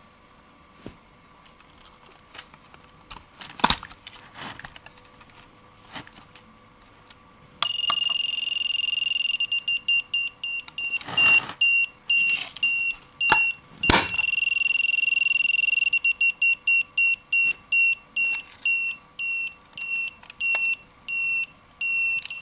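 Bandai Eternal Moon Article compact toy (1996) being handled, with a few faint clicks. About seven and a half seconds in, its electronic sound chip starts a shrill beep at one high pitch. The beep holds steady at first, then breaks into long runs of short rapid beeps, with a few sharp clicks among them.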